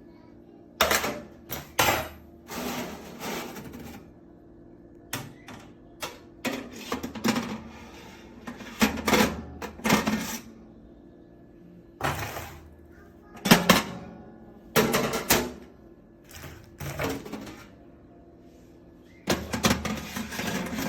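Irregular bursts of clattering, knocking and clicking from hard objects being handled, a dozen or so over the stretch with short gaps between, over a faint low hum.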